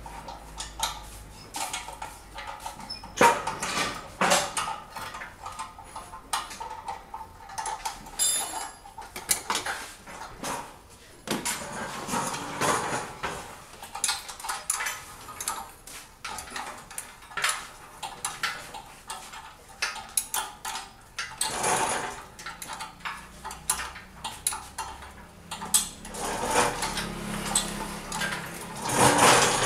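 Irregular metallic clinks, knocks and scrapes of hand tools and loosened engine parts being worked in a car's engine bay while the engine is being stripped for removal.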